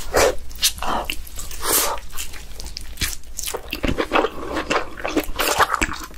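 Close-miked eating sounds of a person biting into and chewing king crab leg meat with a full mouth: an irregular run of wet mouth clicks and smacks.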